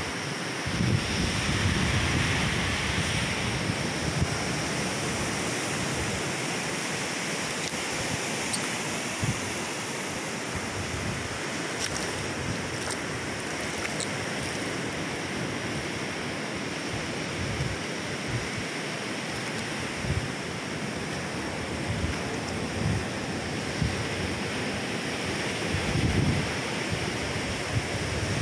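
Steady rushing of sea surf and wind on an open coast, with wind buffeting the microphone in irregular low gusts.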